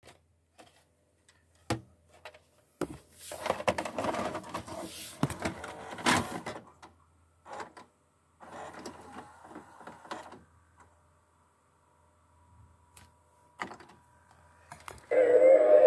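VHS video cassette recorder loading a tape: a click as the cassette goes in, then the loading mechanism whirring and clattering in two stretches as it draws the cassette down and threads the tape, followed by a faint steady whine. Near the end the Play button clicks, and in the last second the sound of the tape playing starts up much louder.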